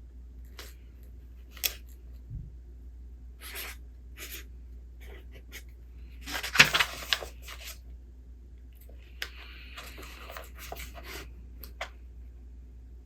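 Book pages being handled and turned: a few light taps and short paper rustles, with one longer, louder rustle about six to seven seconds in, over a steady low hum.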